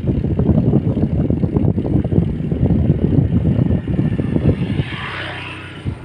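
Wind buffeting the microphone of a moving vehicle, a loud, gusty rumble. About five seconds in the wind eases and a steady engine drone with a higher hiss comes through.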